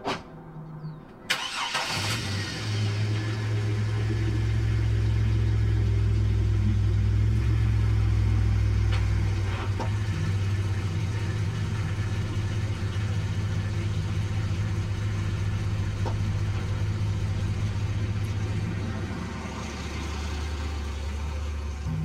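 Van engine being started: a short burst of cranking about a second in, then the engine catches and runs at a steady idle.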